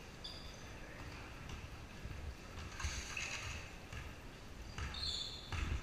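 Basketball players' sneakers squeaking on a hardwood gym floor in short high squeals, three times, over running footfalls and the low rumble of a large hall.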